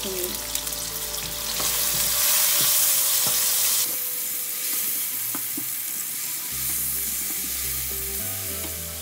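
Chopped onions frying in hot oil in a cooking pot: a steady sizzle, louder from about a second and a half in until nearly four seconds, then dropping suddenly, with light scrapes of stirring.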